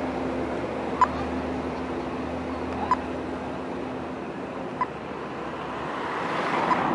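Pedestrian crossing signal sounding its slow locator tone: a short, high beep repeating about every two seconds, four times, over steady street traffic noise. A vehicle passes close near the end.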